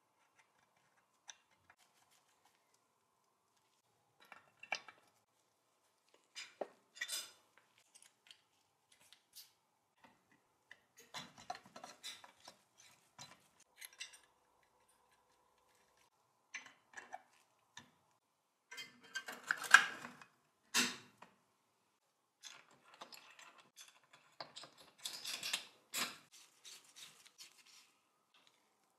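Metal parts of a Pathé Baby projector mechanism being reassembled by hand: scattered clicks, taps and short clatters of a screwdriver, screws and brass gears against the metal body, with gaps between. The loudest clatter comes about two-thirds of the way in.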